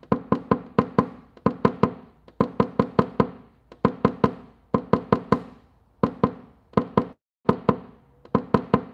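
Paintless dent repair tap-down: a tap-down tool struck with a small hammer against a car's sheet-metal panel to knock down the high spots left by a glue pull. The taps come in quick runs of about four to six, each tap ringing briefly, with short pauses between runs.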